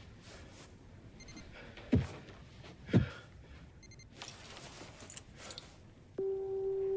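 Film soundtrack effects: two deep booms about a second apart, each dropping in pitch, then a steady humming tone that starts near the end.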